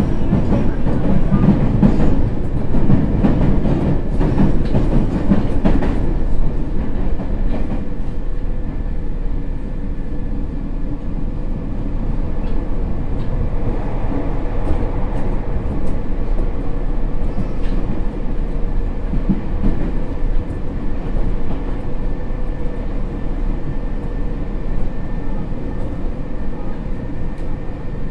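Nagoya Municipal Subway 3000 series train running on the Tsurumai Line: a continuous rumble of wheels on rail, louder for the first six seconds or so and then steadier, with a faint steady whine underneath.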